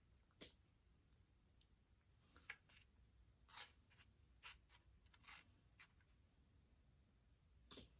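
Faint, scattered scrapes and taps of a plastic spoon against a foam soup cup while egg drop soup is spooned out, several seconds apart, over near silence.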